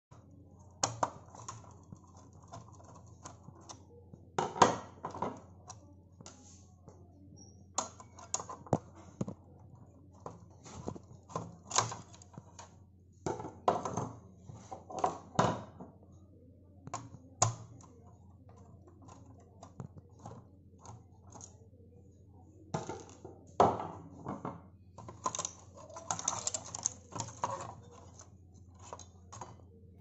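Irregular clicks, knocks and light plastic clatter from parts of an opened Roland Juno-Di keyboard being handled, in loose clusters with the sharpest knocks about four seconds in and again near the end. A steady low hum runs underneath.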